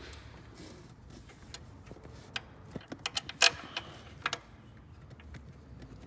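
Hand tools and metal fasteners clinking and knocking while a starter is fitted deep in a car's engine bay: a handful of irregular sharp knocks in the middle, the loudest about three and a half seconds in.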